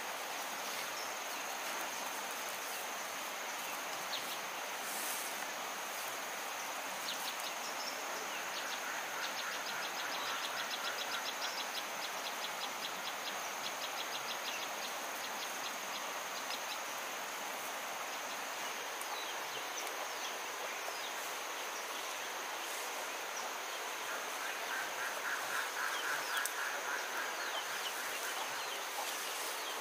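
Countryside ambience: a steady high-pitched insect drone over a constant hiss, with rapid insect or bird trills from about a quarter of the way in and again near the end.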